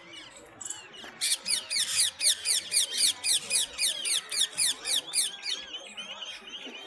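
A bird calling in a rapid, loud series of squeaky notes, about five a second, for roughly four seconds starting about a second in, with softer scattered calls around it.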